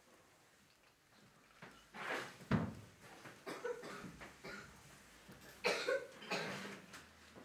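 Several short coughs in a small hall, with a single thump about two and a half seconds in.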